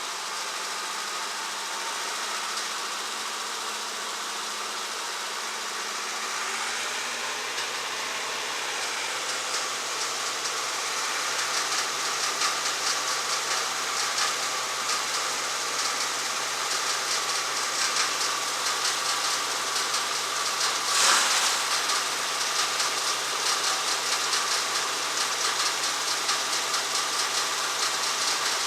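Wood chipper's engine running steadily, with a fast rattling clatter that builds from about ten seconds in and one sharp louder crack about two-thirds of the way through.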